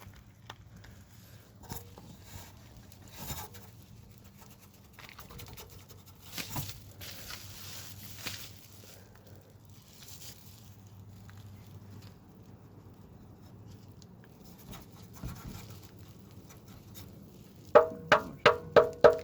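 Scattered clicks and rustling of hands and tools at work. Near the end, five quick, loud metallic knocks that ring briefly.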